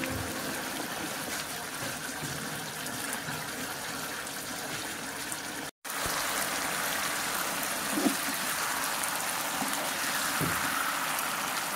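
Beef ribs in a thick sauce bubbling and sizzling steadily in a frying pan as the sauce reduces, with a slotted spatula stirring and scraping twice in the second half. The sound cuts out briefly a little before halfway.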